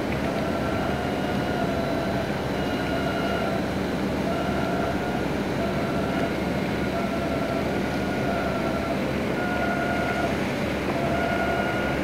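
Steady drone of a vessel underway, engine and rushing water noise, with a whining tone that comes and goes every second or two.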